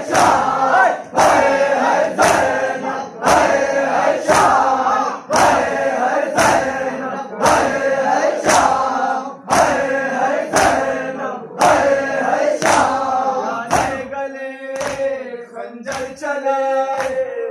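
A crowd of men chanting a mourning noha in unison while beating their chests in matam. The chest strikes land together at about one a second, and the sung voices come through more clearly near the end.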